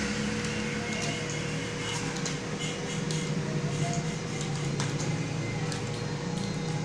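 Computer keyboard being typed on, scattered key clicks over a steady electrical hum and room noise.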